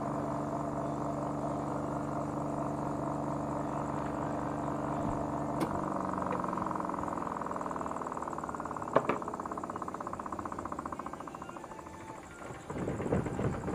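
Washing machine spin-dryer motor running with a steady hum, turning again now that its failed start capacitor has been replaced with a 3.4 µF one. A click comes about six seconds in; the hum stops, and a rapid rhythmic whir slowly fades as the spin tub winds down. Another click comes about nine seconds in.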